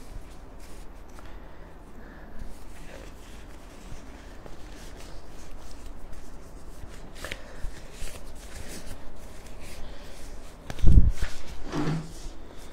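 Faint rustling and light clicks of hands handling food and dishes at a table, with a dull thump about eleven seconds in.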